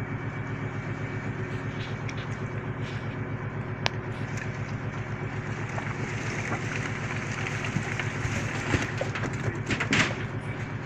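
Fishing trawler's diesel engine running steadily with an even low throb; a sharp click about four seconds in, and a few knocks and clatters near the end.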